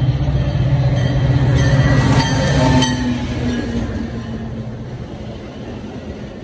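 Metra commuter train led by a diesel locomotive passing close by. The locomotive's low engine drone is loudest about two to three seconds in and drops in pitch as it goes past, followed by the quieter rolling rumble of the bilevel coaches going by.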